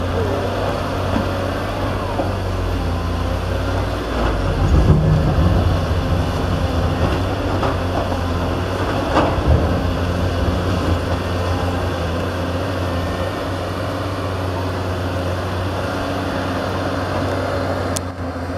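Caterpillar 320D excavator's diesel engine running steadily as it digs and swings, swelling louder under load about four to six seconds in, with an occasional knock of rock.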